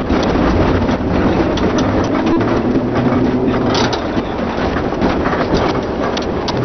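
Tram running on its rails: a steady rolling noise with scattered clicks and rattles from the wheels and car body.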